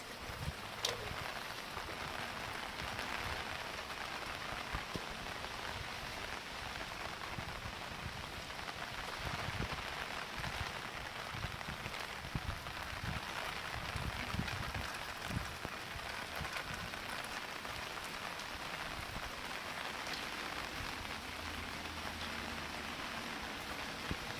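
Steady rain falling on surfaces, with one short sharp click about a second in.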